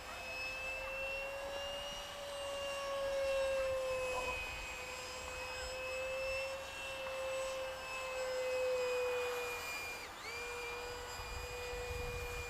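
64 mm electric ducted fan of a FreeWing F-35 Lightning II RC jet in flight: a steady high whine whose pitch drifts slowly up and down, growing louder twice as the model passes. Near the end the pitch dips sharply for a moment and recovers.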